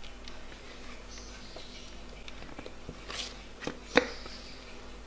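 A spatula scraping thick cake batter out of a plastic mixing bowl into a paper-lined baking tin, with a few light clicks and one sharp knock about four seconds in.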